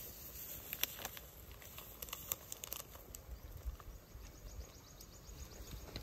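Plastic instant-noodle seasoning sachet crinkling as it is shaken and emptied into a pot of noodles, with a few sharp crackles in the first three seconds.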